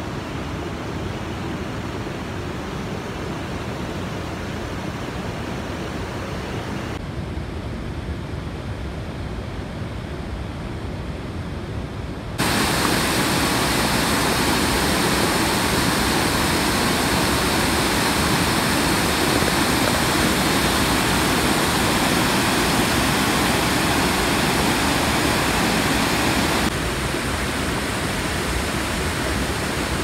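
Water pouring over a low concrete weir: a steady, loud rushing that starts abruptly about twelve seconds in and drops back a couple of seconds before the end. Before it there is a softer steady rushing.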